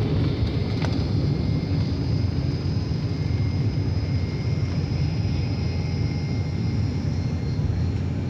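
Airliner jet engines at takeoff power, heard from inside the passenger cabin during the takeoff roll and lift-off. A steady deep rumble runs with a thin high whine above it.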